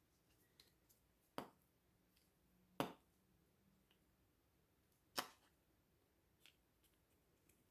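Three sharp clicks, about a second and a half and then two and a half seconds apart, with a few faint ticks between them, against near silence.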